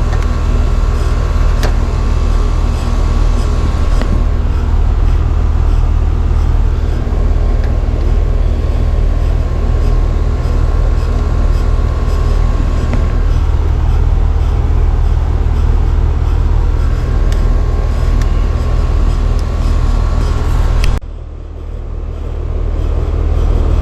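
Air-conditioning condensing unit running: a steady low hum of the compressor and condenser fan. It cuts off suddenly near the end as the unit is shut down.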